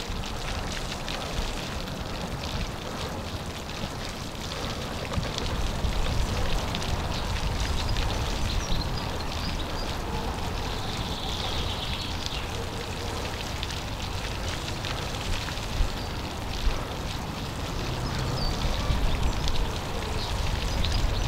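Steady outdoor background noise with a low rumble, and a few faint bird chirps near the middle.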